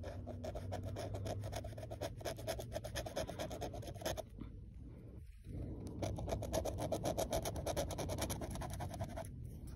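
Pen tip scratching the coating off an instant lottery scratch ticket in rapid back-and-forth strokes, in two bouts with a short pause around the middle.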